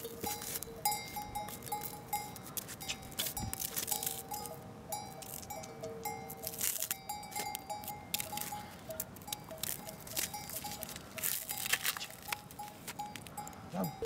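Bells on grazing yaks clanking irregularly, with scattered clicks.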